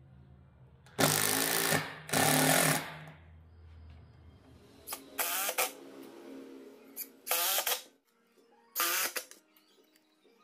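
Cordless driver driving screws into plywood: two full runs of the motor about one and two seconds in, then four short trigger bursts spaced through the rest, the last at the very end.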